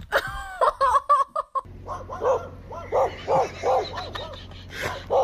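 A short high-pitched cry, then a dog barking in a steady run of about three barks a second, alarm-barking at a plush toy pony.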